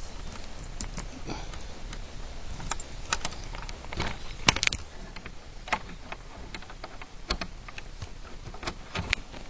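Footsteps on dry ground, giving irregular sharp clicks and crackles over a low rumble, with a louder cluster about four and a half seconds in.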